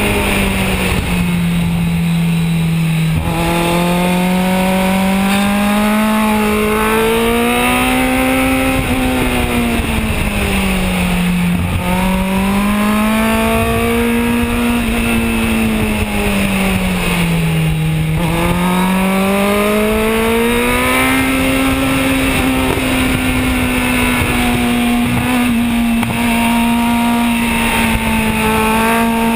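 Kawasaki Z1000's inline-four engine heard from on board at track pace. It rises in pitch over several seconds and falls back again three times, then holds fairly steady near the end, over steady wind rush.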